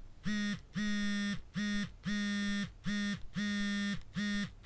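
Phone buzzing for an incoming call: a low, buzzy tone pulsing in a repeating short-long pattern, each buzz sliding up in pitch as it starts and sagging as it stops.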